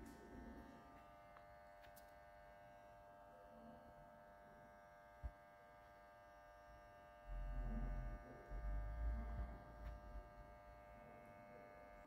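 Faint steady electric hum of a passenger lift's machinery, many evenly spaced tones held without change. From about seven seconds in, irregular low rumbling thumps come and go over it.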